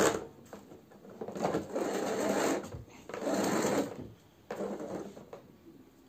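A canister vacuum cleaner being handled while it is switched off: a click, then two rough whirring scrapes of about a second each, then a few light knocks.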